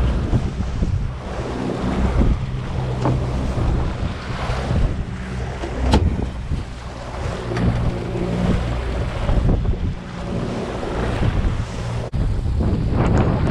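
Wind buffeting the microphone over the steady hum of a boat's outboard motor running at trolling speed, with the wake churning behind it.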